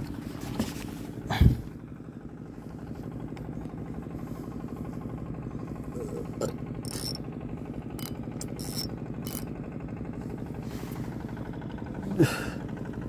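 A boat's engine idling steadily, with a loud sharp knock about a second and a half in and a shorter one near the end.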